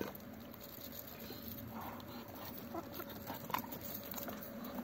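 Hens and Muscovy ducks pecking at food in a plastic takeaway container: irregular small taps and clicks of beaks on the plastic, with a sharper tap about three and a half seconds in.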